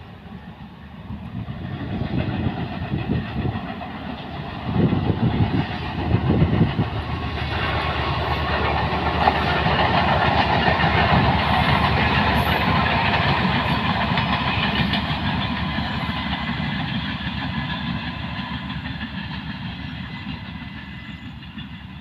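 An EMD GT26 HCW-2A diesel-electric locomotive hauling a train past, its engine and the wheels on the rails growing louder to a peak about halfway through, then fading as it moves away.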